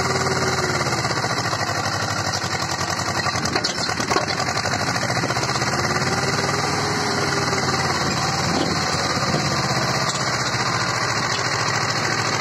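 Swaraj 724 XM tractor's two-cylinder diesel engine running hard as it pulls a heavily loaded trolley through soft sand, with a fast steady throb. Its pitch swells and falls back twice, and there are a couple of clunks about four seconds in.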